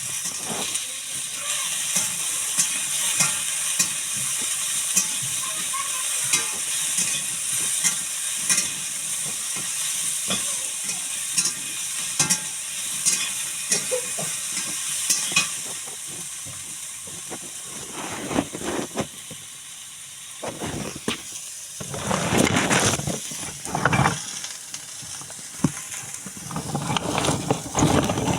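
Food sizzling as it fries in oil in a cooking pan, with short clicks and scrapes from stirring. The sizzle fades after about sixteen seconds, and louder, irregular knocks and scrapes come in over the last ten seconds.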